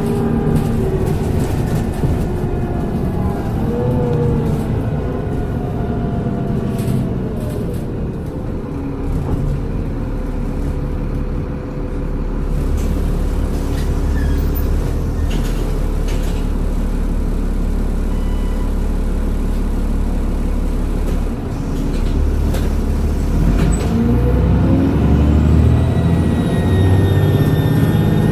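Transbus Trident double-decker bus's diesel engine and Voith automatic gearbox, heard on board. The engine note falls as the bus slows, holds a steady low idle for several seconds, then rises again as the bus pulls away, with a high turbo whistle rising and falling near the end.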